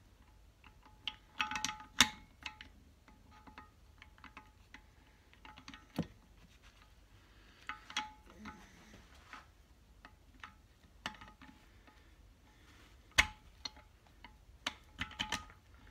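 Light metallic clicks, taps and clinks of a BSA A70L Lightning connecting rod and its big-end cap and bolts being handled and seated on a crankshaft journal. Some have a short ring, and there are sharper knocks about two, six and thirteen seconds in.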